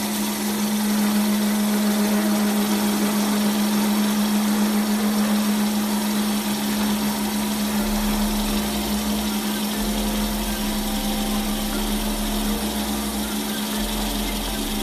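Wood lathe running with a steady motor hum and a constant hiss, cutting in abruptly at the start.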